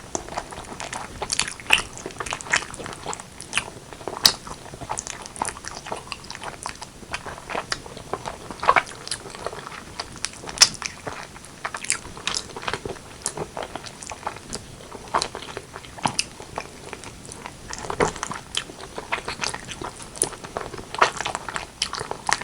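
Close-miked eating of braised pork leg and white rice: steady chewing and biting, with many irregular wet mouth clicks and smacks.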